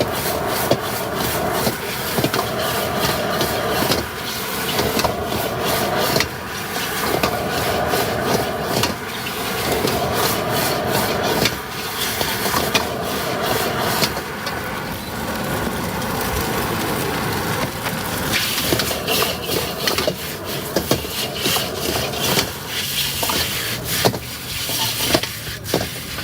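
Metal spatula scraping and clattering against a cooking pan while stir-frying, in a dense run of short scrapes and knocks.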